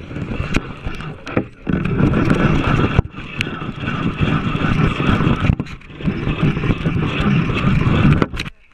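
Wind buffeting the microphone of a moving action camera, a loud rumble with scattered clicks and knocks from handling. It drops out briefly a few times and cuts off suddenly near the end.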